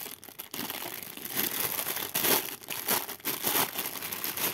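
Thin clear plastic bag crinkling unevenly as hands handle and pull it around the plastic parts sprues of a Mini 4WD model kit, loudest about two seconds in.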